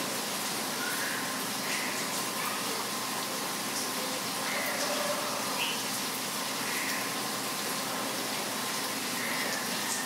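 Steady rain hissing, with birds giving short chirps every second or two over it.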